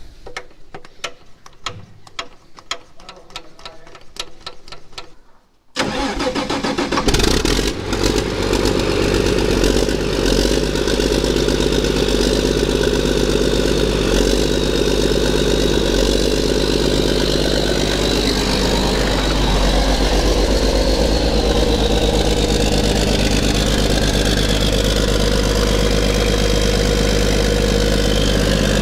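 Faint rapid clicking, then about six seconds in a rebuilt Caterpillar diesel tractor engine fires and runs. It surges briefly, then settles to a steady run with a high whine over it, open with no exhaust fitted.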